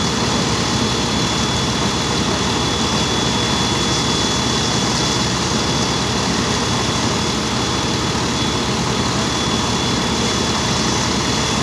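Fire truck engine running steadily with a constant high whine, supplying water to the aerial ladder's elevated stream.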